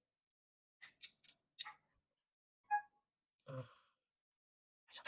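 Small gears and metal parts of a copier fuser drive being handled and fitted: a few light clicks, a brief pitched ping about halfway, a duller knock a little later, and a rapid clatter of parts starting at the very end.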